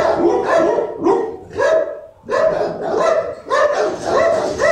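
Dog barking rapidly and repeatedly, about two to three barks a second, with a short break about two seconds in.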